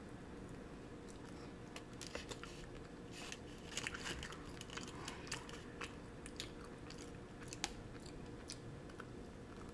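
Close-up mouth sounds of chewing a cinnamon crunch bagel: crunching with sharp wet clicks, busiest around the middle, over a faint steady hum.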